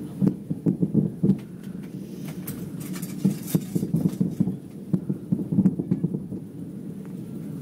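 Distant fireworks going off in quick succession: a rapid run of dull pops and booms, with a few sharper cracks about two and a half to three and a half seconds in.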